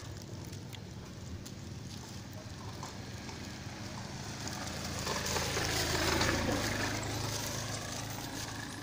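A motor vehicle's engine running, with a steady low hum, that swells louder as the vehicle passes in the second half and then fades.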